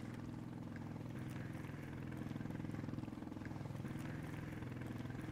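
A boat's engine running steadily: a low, even hum.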